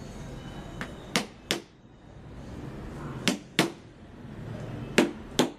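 Sharp knocks struck in quick pairs, one pair about every two seconds, over a low steady background noise.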